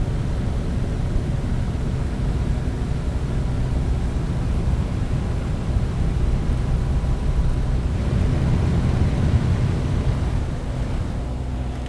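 Propeller aircraft in flight heard from the cabin with a window open: a steady engine drone under rushing wind noise. It eases off a little near the end.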